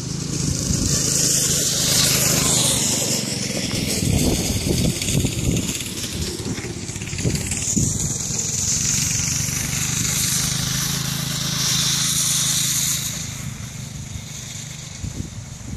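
Homemade go-kart's Honda 160 cc single-cylinder four-stroke engine running steadily as the kart drives across grass, its sound dropping away about thirteen seconds in as the kart moves off.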